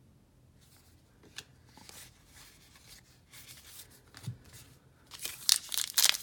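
Baseball trading cards handled and slid against each other, soft and faint, then about five seconds in a loud crinkling as a foil card pack wrapper is torn open.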